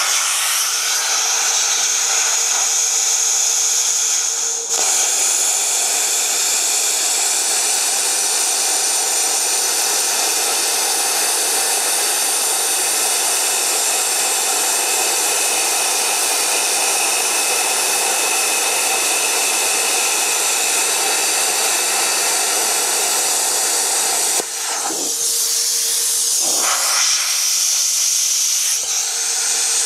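Plasma cutter cutting through steel plate: a loud, steady hiss of the torch's air and arc. About 25 seconds in the arc breaks off with only the air still hissing, and the cut starts again near the end.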